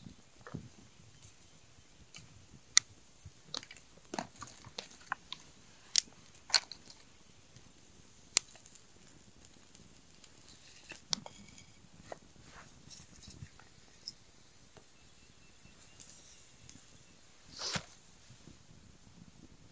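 Small kindling fire of twigs, a pine cone and split sticks crackling with sharp, irregular pops as it catches. Dry twigs and split sticks are laid onto it with light snaps and rustles, and a longer, louder rustle near the end.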